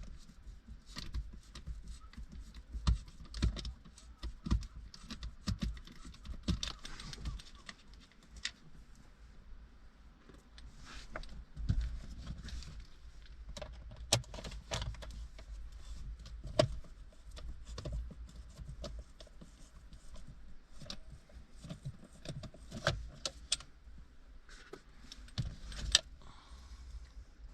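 Plastic interior trim of a car's center console being handled and worked loose by hand: irregular clicks, taps and light rattles throughout.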